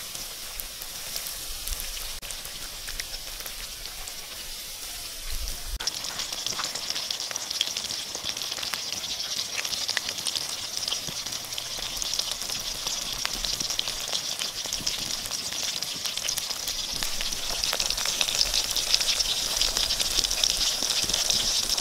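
Breaded chicken strips deep-frying in hot oil in a wok: a steady sizzle full of fine crackling pops. It gets louder about six seconds in and builds further towards the end.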